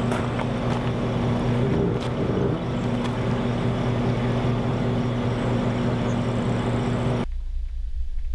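Steady engine drone of a parked SUV left running, mixed with wind noise on the microphone. It cuts off abruptly near the end, leaving only a low rumble.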